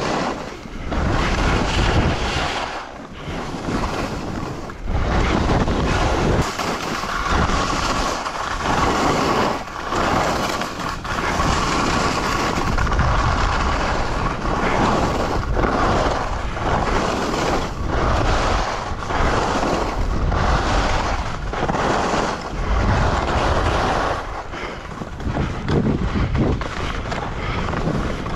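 Wind rushing over the camera microphone while skiing, with skis hissing and scraping over the snow. The sound rises and dips every second or two.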